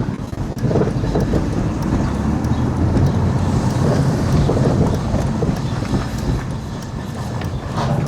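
BMW E46 on a short test drive: engine and road noise, heaviest in the low range, with a scatter of short knocks and rattles.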